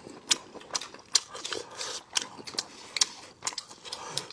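A person chewing cartilage from spicy braised lamb bones, with sharp, irregular crunches about twice a second.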